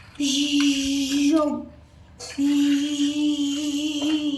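A child's voice holding a long, steady note twice, each ending with a small pitch wobble.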